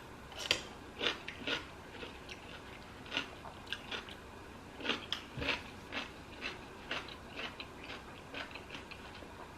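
Close-miked chewing and biting, with irregular wet, crunchy mouth sounds about two a second. The sharpest ones come in the first second and a half and again around five seconds in.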